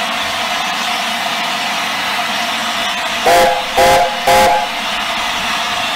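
Steam locomotive whistle giving three short blasts about half a second apart, each a chord of several notes, over a steady hiss of escaping steam.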